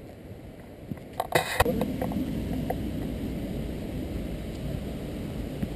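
Inline skate wheels rolling over pavement, a steady low rumble that sets in after a short cluster of clicks and knocks about a second and a half in.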